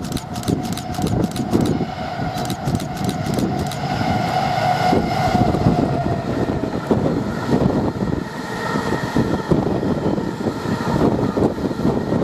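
Engineering train passing at speed, its wagon wheels clattering quickly and evenly over rail joints for the first few seconds, then a steady rumble and rail hum as the train runs by.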